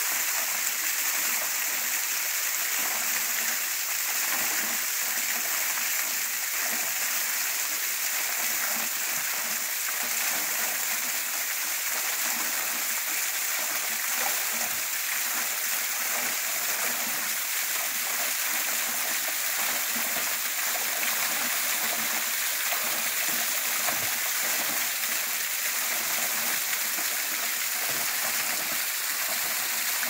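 Small tributary waterfall splashing steadily, its thin flow of water falling between icicles onto ice and rock in deep winter.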